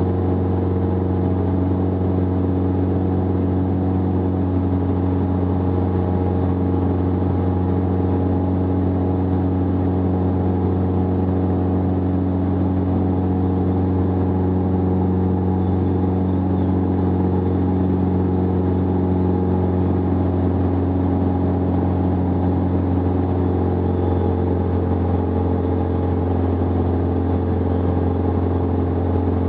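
Jabiru 2.2-litre four-cylinder air-cooled aircraft engine and propeller of a Jabiru SP500 light aircraft running steadily in flight, holding one constant pitch with no change in power.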